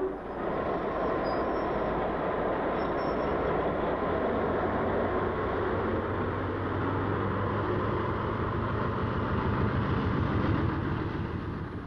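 Diesel-electric locomotive running: a steady low engine drone under a broad train rumble, fading out near the end.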